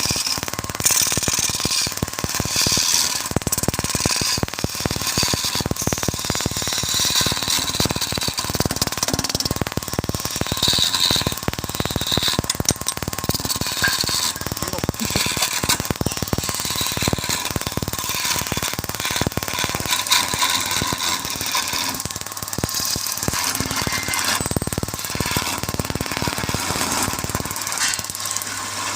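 Woodturning on a lathe: a tool cutting into the spinning wood, a rapid, continuous rattling chatter over a faint steady whine.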